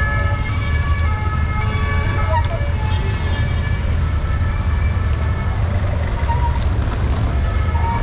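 Emergency vehicle siren sounding in city traffic, its tones holding level rather than wailing, strongest in the first couple of seconds and then fainter. Under it runs a steady low rumble of wind on the microphone of a moving bicycle.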